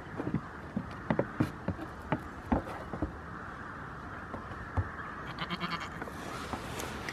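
Goat hooves knocking on upturned plastic tubs several times, then a goat bleats once, about five seconds in.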